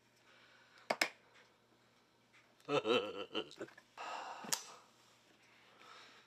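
Pelican-style hard plastic case being turned on a table and its latches snapped open: a pair of sharp clicks about a second in, a scraping clatter near the middle, then a short rush ending in a sharp snap as the lid comes free.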